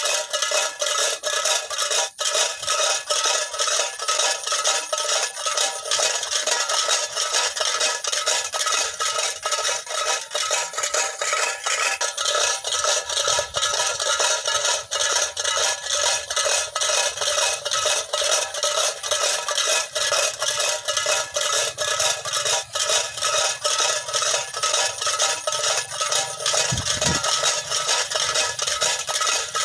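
Tin-can bird scarers filled with small stones, rattling and clanking without a break as their string is pulled, a noise meant to keep munia away from the ripening rice.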